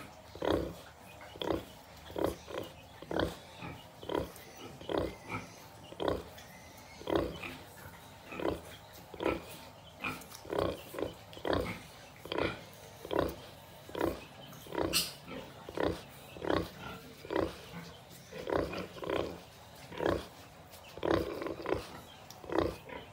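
Sow grunting in a steady rhythm, about two short, low grunts a second, while her piglets suckle: the nursing grunts a sow gives during a feed.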